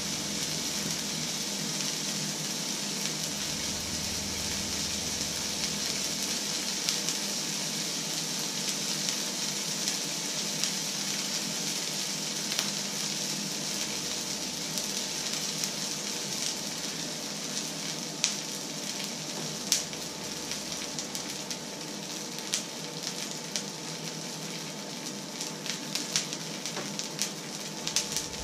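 Oil sizzling in a hot black steel frying pan, a steady hiss with sharp pops and crackles that come more often in the second half.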